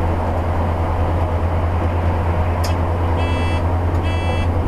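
Cummins ISL 8.9-litre six-cylinder diesel pulling hard up a long grade in fifth gear at about 1,850 RPM, a steady low drone heard inside the motor home's cab. About three seconds in, an electronic beep starts repeating roughly once a second, just after a single click.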